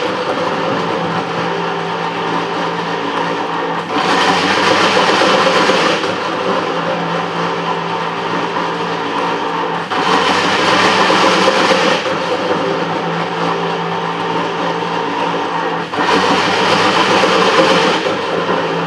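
Metal planer running, its table stroking back and forth while the tool planes the crosshead ways in a cast-iron stoker engine casting. A steady machine drone carries through, with a louder, harsher stretch of about two seconds every six seconds as the stroke cycle turns over.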